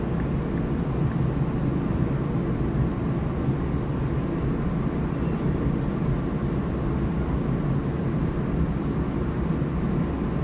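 Interior cabin noise of a Taiwan Railway EMU3000 electric multiple unit as it pulls out of a station: a steady low rumble from the running gear and traction motors, heard from inside the passenger car.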